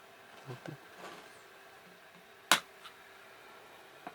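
Hand tools knocking on the riveted cover of a washing-machine wash motor as the drilled rivet heads are taken off: a few faint knocks, then one sharp click about two and a half seconds in.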